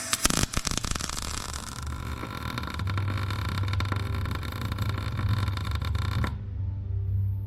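MIG welder laying a weld bead, with wire speed and heat just turned up. The arc sputters as it strikes, then crackles steadily for about six seconds and cuts off suddenly.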